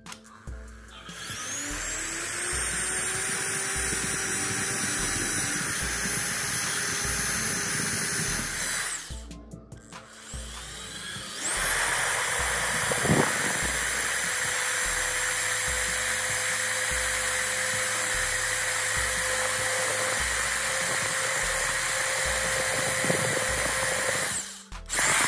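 Handheld electric drill with a thin twist bit spinning up with a rising whine and drilling into a black cap set in the bore of an old hammer drill's rusty housing, in two long runs with a short stop in the middle. Background music with a steady beat plays underneath.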